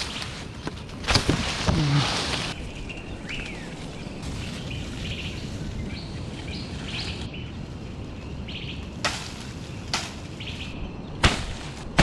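A coconut palm frond rustles loudly about a second in, as it is cut and pulled free. Birds then chirp in short notes for several seconds, and a few sharp knocks come near the end.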